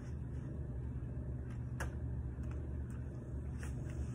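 A steady low hum, with a few faint, irregular ticks and crackles from LaCroix sparkling water fizzing in a plastic cup as blackberries are added.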